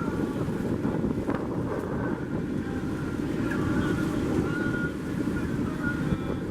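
Steady wind buffeting the microphone aboard a boat under way, with the wash of water underneath.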